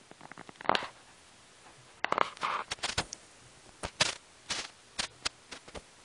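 Cockatoo moving about on a fabric bedspread: irregular sharp clicks and short scratchy rustles of claws and beak, with a busier, louder cluster about two seconds in.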